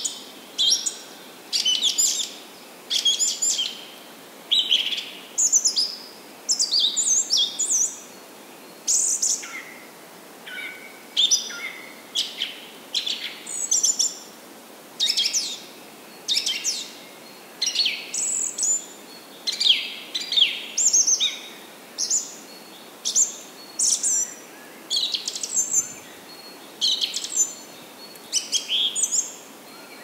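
Small birds singing and chirping: a continuous run of short, bright, high-pitched phrases, one to two a second.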